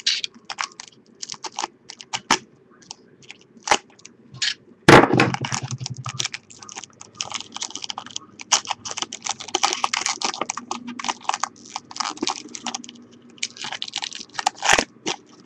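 Foil wrapper of a trading-card pack crinkling and crackling in the hands as it is slit and peeled open: irregular sharp crackles, with a louder burst about five seconds in and the densest stretches in the middle and near the end.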